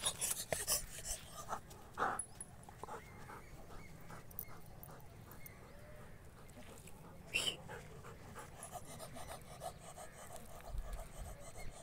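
German shepherd dog panting quietly, with two brief louder noises, one about two seconds in and one a little past the middle.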